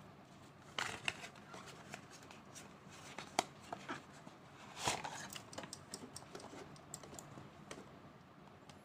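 Hands handling a watch's paper card and cardboard box: a run of light clicks, taps and brief rustles, the loudest about three and a half and five seconds in.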